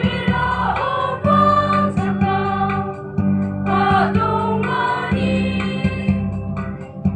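Women's choir singing together, over a steady low instrumental accompaniment.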